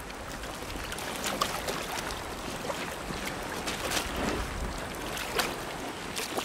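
Water sounds: a steady wash of moving water with a few light splashes.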